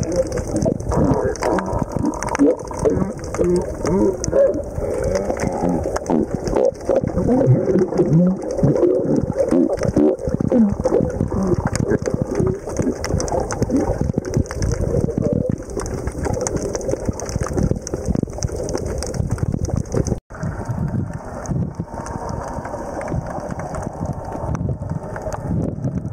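Underwater sound picked up while snorkeling: a constant rush of water and bubbles with a steady high hiss. Through the first half, many short wavering pitched sounds come and go. The sound breaks off for a moment about twenty seconds in and goes on steadier after that.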